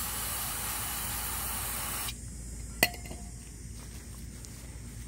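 Aerosol brake cleaner sprayed through its straw onto a small metal part: a steady hiss that cuts off about two seconds in. A single sharp click follows a little later.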